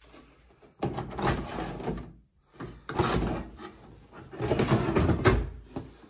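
The plastic condensate water tank of a Siemens iSensoric heat-pump tumble dryer being slid out of its drawer slot in three noisy bouts of plastic sliding and rattling, the last one the longest.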